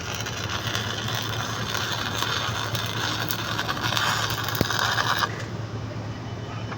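Stick-welding arc crackling and sizzling for about five seconds, then cutting off suddenly as the arc is broken. A steady low hum runs underneath.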